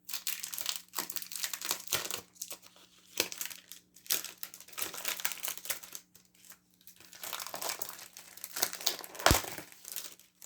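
Plastic packaging of embossing folders crinkling and rustling as it is handled, in irregular bursts, with one sharp knock about nine seconds in.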